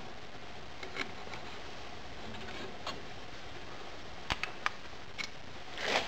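A few light metallic clicks and clinks as pliers grip a small steel crucible of molten pewter and lift it out of a copper induction coil, with a brief scraping rush near the end, over a steady low background hum.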